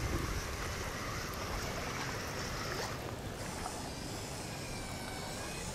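Small electric motors of a toy RC amphibious vehicle whining steadily as its paddle treads churn through shallow water, the whine changing pitch about three seconds in. Wind rumbles on the microphone underneath.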